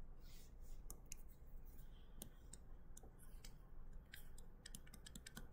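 Near silence with faint, irregular clicks and taps of a stylus on a tablet screen as lines are drawn.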